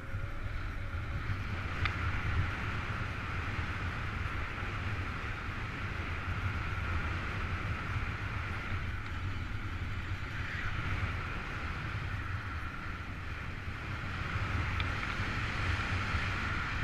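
Wind rushing steadily over the camera microphone in paraglider flight: an even hiss with a low rumble.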